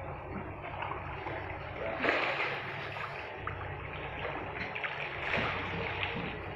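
Water sloshing and splashing against a small fishing boat over a steady low engine hum, with a louder splash about two seconds in and another a little after five seconds.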